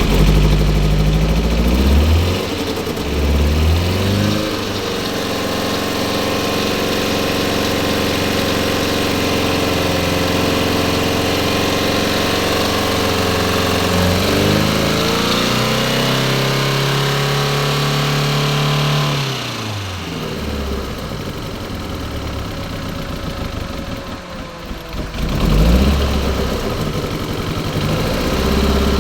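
Mazda Demio engine running just after a hard start and being revved by hand. Its speed rises and falls a few times and is held raised for several seconds before dropping back. Near the end the idle sags low and is picked up with a quick rev.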